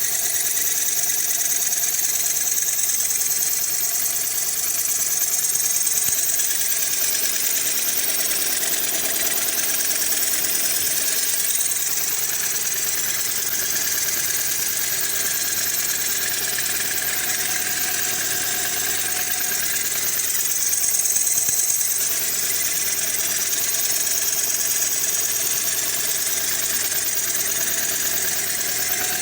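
Lada Granta FL engine idling steadily, with a high whistle from the alternator drive belt, which runs without a tensioner.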